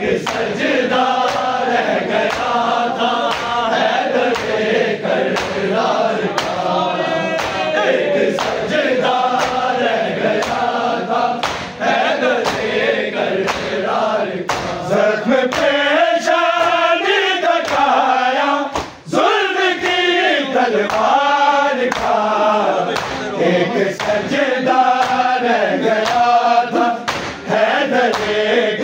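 Male voices chanting a noha, an Urdu lament, in chorus, over a steady beat of sharp strikes a little more than once a second. The singing breaks off briefly about 19 seconds in.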